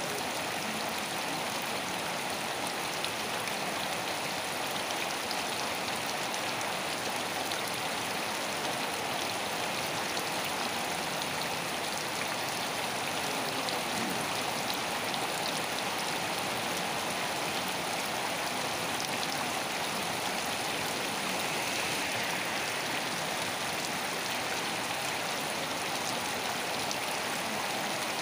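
Steady rain falling: an even, unchanging hiss with faint scattered drop ticks.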